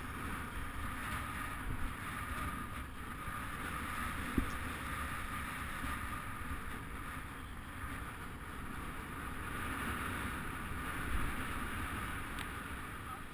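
Steady wind rushing over the microphone and rolling road noise from a road bike moving along asphalt, with one sharp click about four seconds in.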